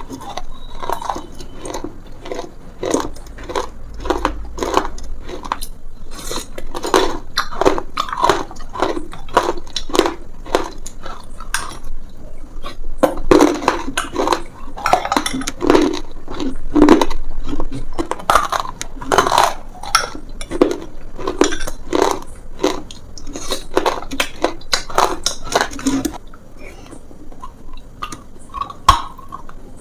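Close-up crunching and chewing: someone biting into and chewing a hard, crumbly food, with rapid sharp crunches several times a second and brief pauses between bites.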